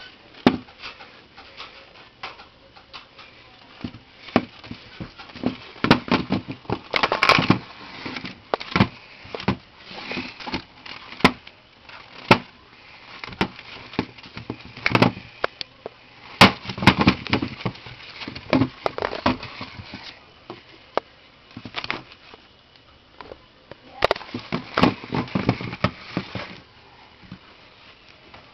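Irregular clicking, scratching and knocking in clusters: pet turtles scrabbling with their claws and knocking shells on a hard board scattered with paper.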